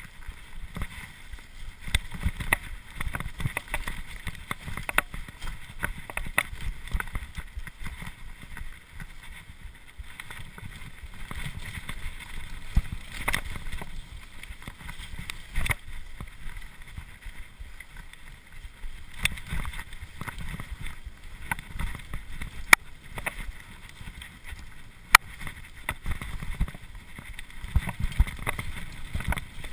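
Cube LTD Pro hardtail mountain bike descending a dirt forest trail at speed: a steady low rumble of the tyres over the ground, with frequent sharp clicks and knocks as the bike rattles over bumps.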